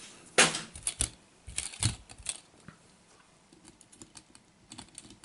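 Hard plastic and diecast clicks of small toy monster trucks being handled and set on a stack of other 1/64 diecast trucks: a sharp clack about half a second in, a few more over the next two seconds, then faint ticking.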